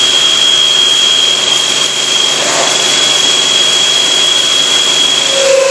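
Drilling machine spindle roughing a hole through a stack of steel baffle plates at 1500 RPM under coolant mist: a steady loud rush of noise with a high whine that stops near the end.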